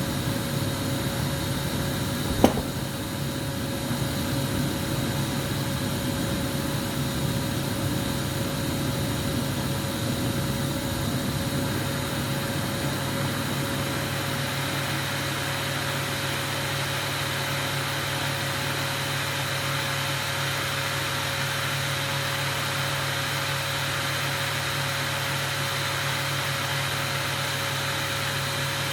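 Steady machine hum with a broad hiss and a constant mid-pitched tone, interrupted by one sharp click about two and a half seconds in.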